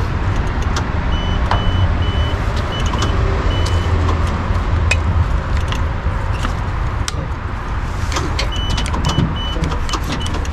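Short electronic beeps repeating in groups over a steady low rumble, with scattered sharp clicks.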